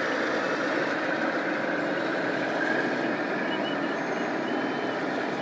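Steady noisy din of a busy exhibition hall where radio-controlled scale model vehicles are running. Thin, high beeps come in about three and a half seconds in.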